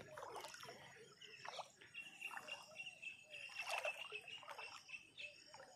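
Faint rural outdoor ambience with scattered short bird chirps and calls, and a thin steady high tone through the middle.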